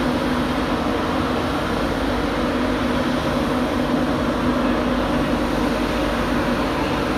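LNER Class 91 electric locomotive standing at the platform, its cooling fans and equipment giving a steady hum with a constant low tone.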